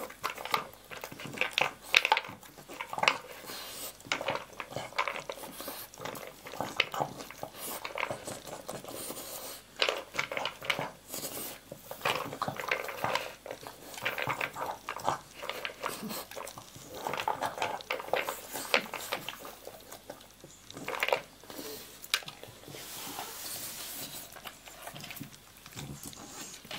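A dog eating dry kibble from a plastic slow-feeder bowl, its muzzle working the food out between the raised knobs: irregular crunching and clicking of kibble against the plastic, in quick uneven bursts.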